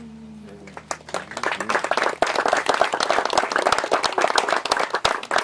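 Guests clapping: the applause starts about a second in and swells to full by two seconds, while the last notes of a recorded song fade out at the start.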